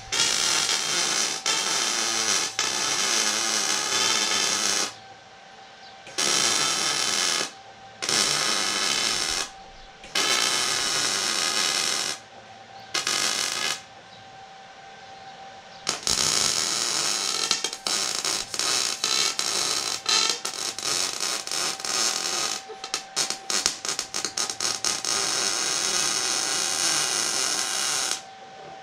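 Arc welding in a series of runs: a crackling sizzle lasting one to six seconds each, starting and stopping abruptly, with a burst of quick stop-start stitching about twenty-three seconds in.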